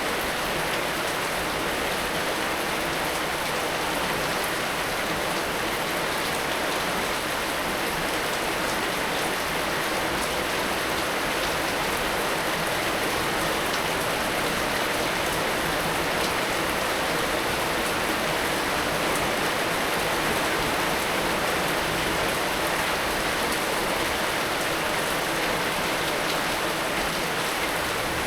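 Heavy rain falling steadily, a dense even hiss of drops striking surfaces with fine pattering ticks and no let-up.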